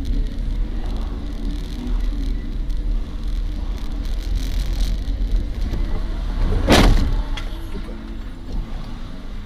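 Steady road and engine rumble of a car, as picked up by a dash camera inside the cabin. About two-thirds of the way through there is a single sudden loud bang, the loudest sound here.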